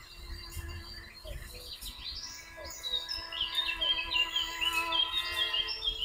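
Bird chirps and twitters over soft music with long held tones; the chirping gets busier and louder about halfway through.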